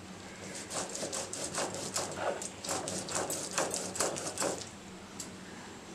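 Stone muller rubbed back and forth over wet-ground poppy seeds on a stone grinding slab (Bengali shil-nora): rhythmic scraping strokes, about four or five a second, starting a little under a second in and stopping about four and a half seconds in.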